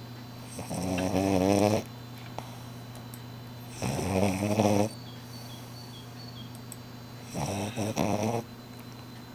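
French Bulldog snoring in her sleep, like a human: three snores about three and a half seconds apart, each lasting about a second and wavering in pitch.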